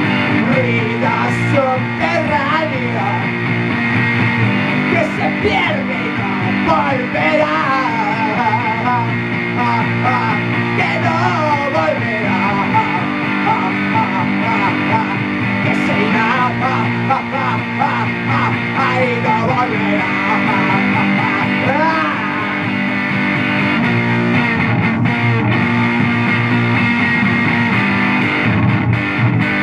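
Electric guitar played through a Laney amplifier in a noise-rock instrumental passage. Wavering, bending notes sound over a steady low drone, and the drone shifts pitch a few times.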